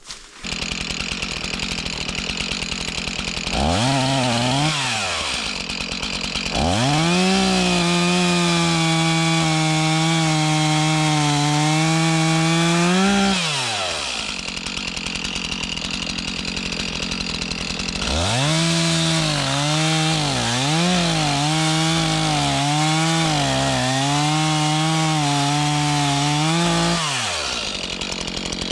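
Two-stroke chainsaw idling, then revved to full speed twice for several seconds at a time, dropping back to idle between and after. In the second run the pitch sags and wavers, as a saw does when it is cutting wood.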